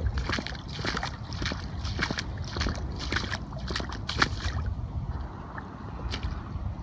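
Footsteps splashing through shallow floodwater, several uneven steps that stop about two-thirds of the way through, with wind rumbling on the microphone.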